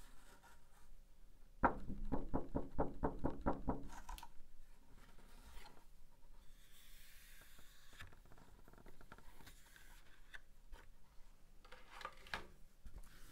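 Clear plastic clamshell packaging crackling as it is handled, with a sudden run of quick crackles about two seconds in that lasts about two seconds. Softer rubbing and scattered clicks follow, with a few more clicks near the end as the cardboard insert is drawn out.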